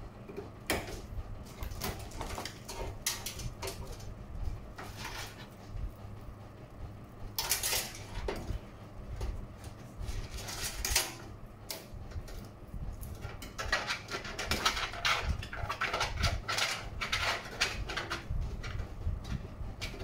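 Hands working inside a steel PC case, fitting cables to the motherboard: irregular small clicks, rattles and scrapes, getting busier in the second half.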